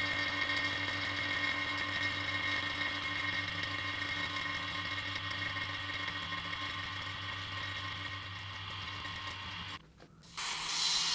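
Electric vacuum pump running steadily with a hum and whine while degassing epoxy resin in a vacuum chamber. It is switched off near the end, then comes a loud hiss of air rushing back into the chamber for about a second and a half.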